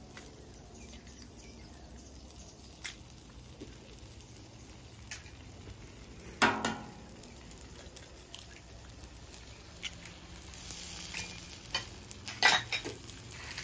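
Eggs cracked onto a hot buttered steel flat-top griddle and frying, with a quiet sizzle underneath. There are a few light taps of shell, one sharp crack about six and a half seconds in, and a burst of hiss with a couple more knocks near the end.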